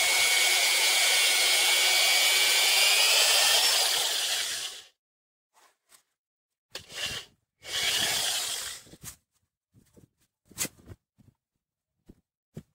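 Corded electric drill boring into an old grapevine trunk, cutting the hole for a drill graft. It runs steadily with a high whine for about five seconds and stops, then gives two short bursts a couple of seconds later.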